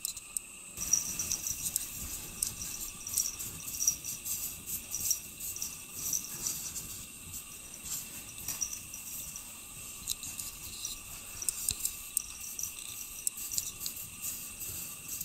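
A cat scratching and digging at packed snow with its paws: many short, soft scratchy crunches, over a faint steady high whine.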